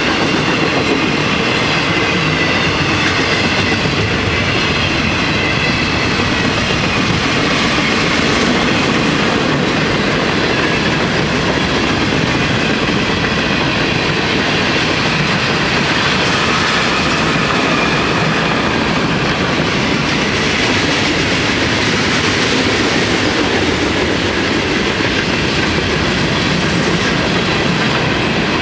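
Freight cars of a long FEC train rolling past: a steady, loud rumble and clatter of steel wheels on the rails.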